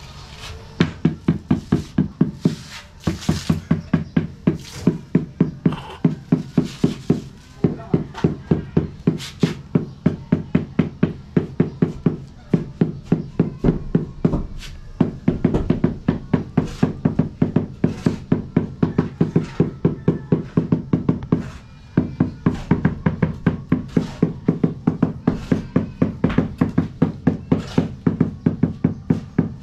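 A rubber mallet tapping a large floor tile down into its wet mortar bed, several quick knocks a second in runs with short pauses, bedding and levelling the tile.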